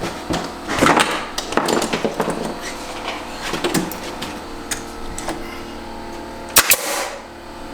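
Shiplap boards being handled and nailed up: scattered knocks and taps of wood, then two sharp, loud nailing cracks in quick succession near the end.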